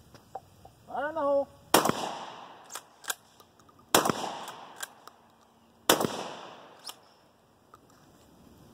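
Rock Island Armory Meriva 12-gauge pump-action shotgun firing three rounds of 2¾-inch birdshot, about two seconds apart, each shot echoing briefly. Lighter clicks of the pump being worked come between the shots, and a short vocal call comes just before the first shot.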